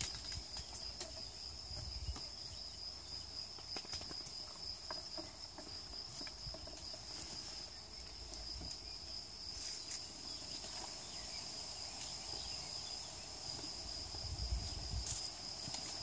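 Steady, high-pitched insect chirring, with scattered small clicks and rustles from goats browsing and stepping on stony ground among shrubs. A brief low rumble comes near the end.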